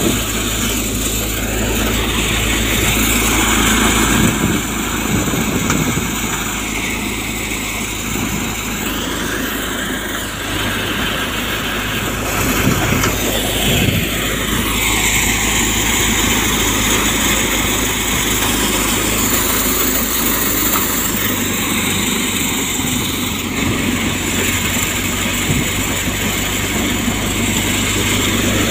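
Multi-crop thresher running under load: a loud, steady mechanical drone with a constant low hum that swells and eases now and then as crop plants are fed in.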